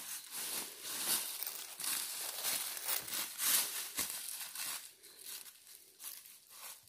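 Footsteps crunching and rustling through dry fallen leaves at an uneven pace, thinning out and getting quieter about five seconds in.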